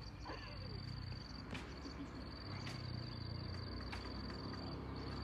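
An insect trilling steadily at a high pitch, a fast pulsing buzz that breaks off briefly twice, with a few sharp knocks.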